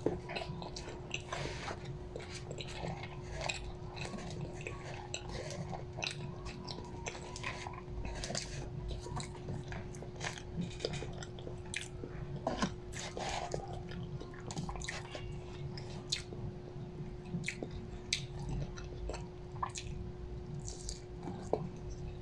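A person chewing and biting food, with frequent small clicks and scrapes of plastic forks against a paper takeaway box, over a steady faint hum.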